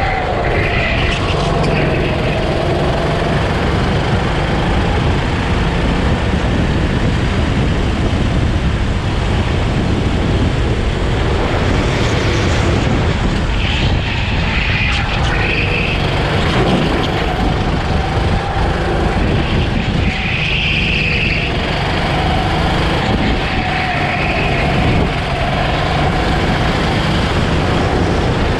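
Go-kart engine running hard while lapping, heard from onboard, its note wavering and easing off a few times before picking up again.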